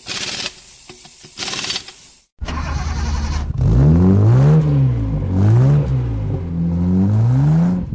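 Two short bursts from a power tool, then from about two and a half seconds in the BMW 325Ci's inline-six engine running and revving up and down repeatedly.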